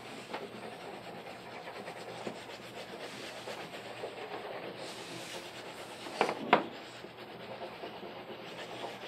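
Crayon rubbing on paper in quick back-and-forth strokes, colouring in with light pressure. Two brief louder sounds come about six seconds in.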